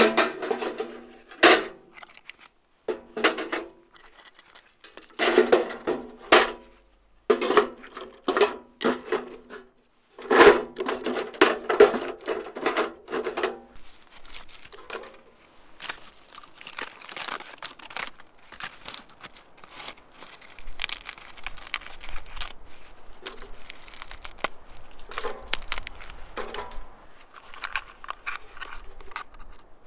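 Bark and birch-bark tinder being crumpled, torn and dropped by hand into a steel ammo-can stove: bursts of crackling and rustling against the metal box, loud for about the first half, then quieter, steadier rustling.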